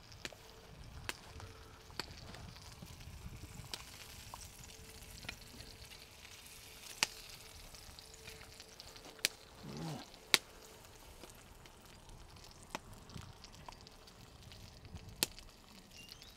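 Open wood fire crackling, with sharp pops every few seconds over the faint steady sizzle of a cooking pot hung above it.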